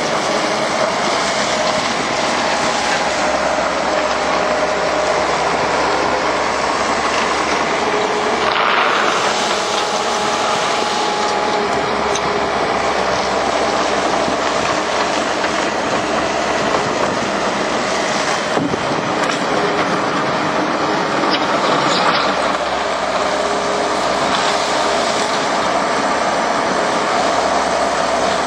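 Takeuchi TL150 skid steer at work loading gravel: its diesel engine runs steadily under load along with the machine's mechanical noise, swelling briefly about nine seconds in and again about twenty-two seconds in.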